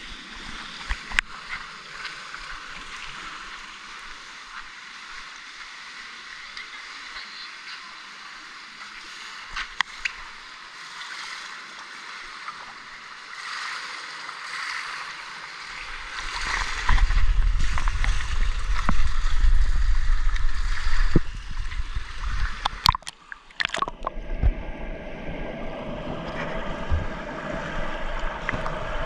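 Indoor swimming pool hall: echoing water splashing and lapping, with scattered clicks. About halfway through a loud low rumble of water and handling noise on the camera housing starts as the camera is carried into the pool, and near the end the sound turns muffled as the camera goes underwater.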